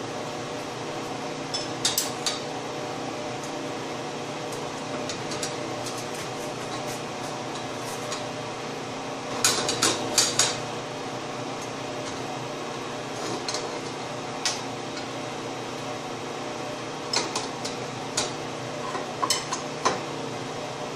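Sharp metal clinks of a steel wrench on nuts, threaded rod and the steel elevator frame as the nuts are tightened: a pair a couple of seconds in, a loud cluster about halfway through, and a run of them near the end, over a steady background hum.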